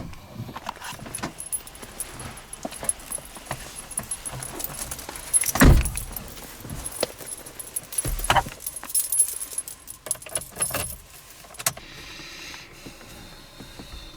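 A bunch of keys jangling, with many small clicks and two heavy thumps about six and eight seconds in.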